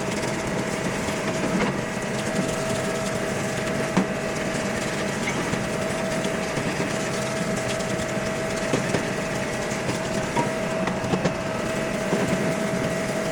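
Parts washer running steadily with a constant whine over an even rushing noise, and a few light clinks of metal parts being handled in it.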